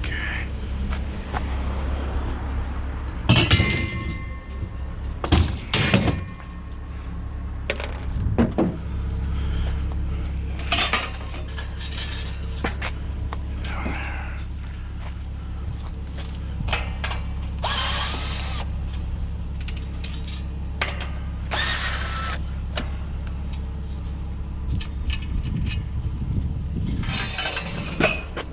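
Scrap metal being handled: irregular clanks, knocks and scrapes over a steady low hum.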